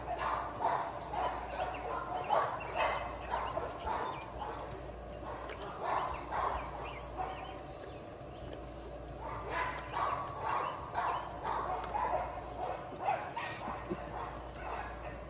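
Several pit bull puppies eating dry kibble from a metal bowl: a busy, irregular run of small crunches and clicks as they chew and nose the pellets around the bowl, easing off briefly about halfway through.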